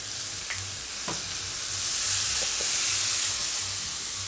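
Sliced mushrooms sizzling as they fry in a pan and are stirred with a spatula; the sizzle gets a little louder around the middle.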